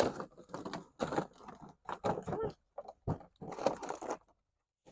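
German Shepherd puppies chewing and crunching food, in irregular bursts with short gaps.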